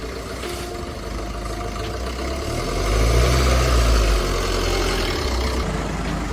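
Low engine rumble of a motor vehicle that swells about halfway through and then eases off, over background music.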